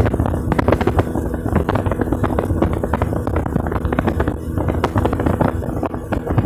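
Motorboat under way: a steady engine drone under a dense, irregular run of knocks and slaps.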